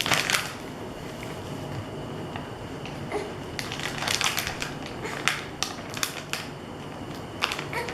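Packaging being handled and opened by hand, crinkling and rustling in several short bursts of crackles.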